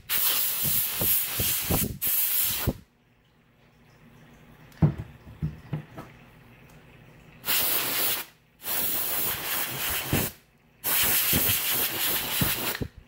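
Can of compressed air spraying in long hissing bursts: one lasting nearly three seconds at the start, then three more in the second half, with a single knock around the middle. The can is throwing out its propellant as a cold mist, which she calls blowing "ice air".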